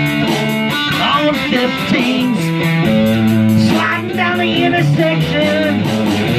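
Electric guitar playing a slow rock groove over a steady sixteenth-note beat, with a bending, wavering lead melody on top.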